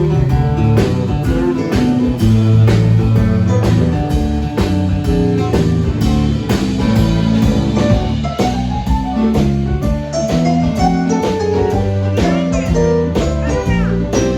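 Blues-rock band playing an instrumental passage: guitar over a drum kit keeping a steady beat, with no singing.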